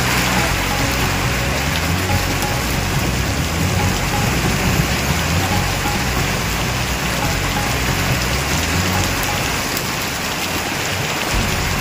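Heavy rain pouring down on a street and parked vehicles: a steady, dense hiss of downpour, with a low rumble underneath.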